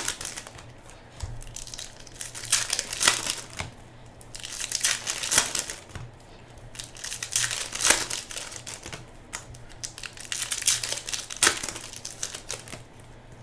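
Plastic wrapping on trading-card packaging crinkling and tearing as it is handled, in irregular bursts a second or so long.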